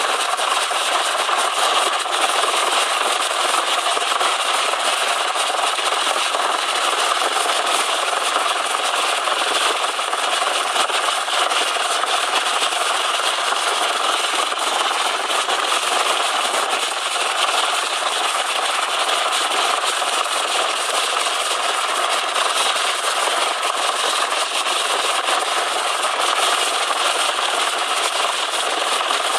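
Search-and-rescue helicopter hovering low overhead: loud, steady turbine and rotor noise that holds level throughout.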